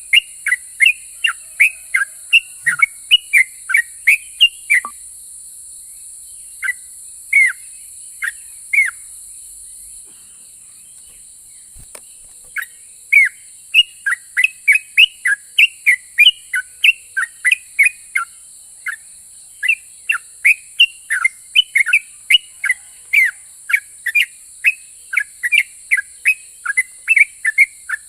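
Yellow-vented bulbul (trucukan) singing a fast rolling run of short, sharp, falling whistled notes, about three a second. The run breaks into a few scattered notes and a pause of a few seconds near the middle, then picks up densely again.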